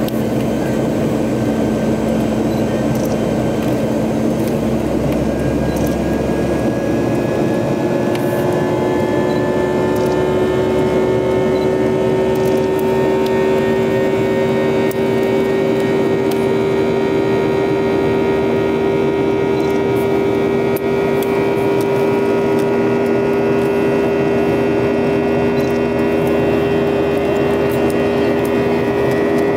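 Inside the cabin of a Boeing 737 climbing after takeoff: the steady roar of its jet engines and airflow, with a hum of several tones that slowly rise in pitch. A low rumble underneath drops away about six and a half seconds in.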